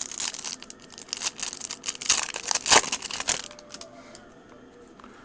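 Foil wrapper of a trading card pack crinkling and tearing as the pack is opened. It makes a dense crackle for about three and a half seconds, then dies down.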